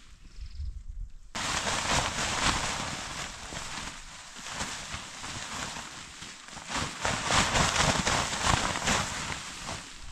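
A tent flysheet rustling as it is pulled off the tent and handled, starting suddenly about a second in and loudest in the second half.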